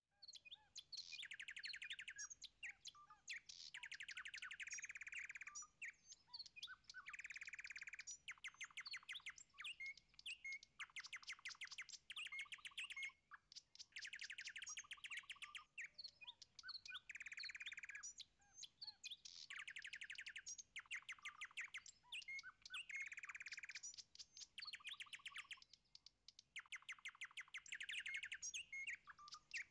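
Small birds chirping faintly in quick high trills, repeating every second or two: a dawn-chorus ambience.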